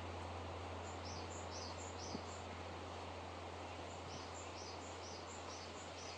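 A small bird calling repeatedly: short high chirps in quick runs of several, over a steady background of outdoor noise with a low, even hum.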